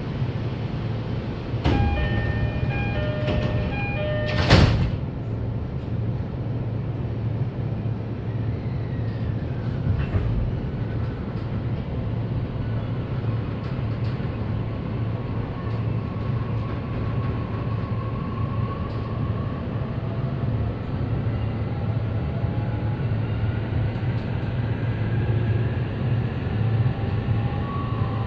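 Inside a JR East E531 series electric train: a door chime sounds a short run of repeated tones, then the doors slam shut with a thud about four and a half seconds in. The train then pulls away, and its traction motors whine steadily upward in pitch as it gathers speed over a low running hum.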